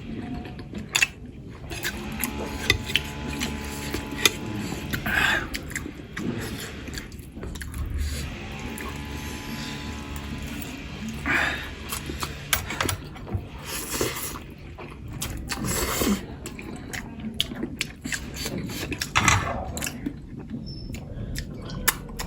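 Close-up eating sounds: chewing of momo and noodles, with many short clicks of a spoon against a plate scattered throughout.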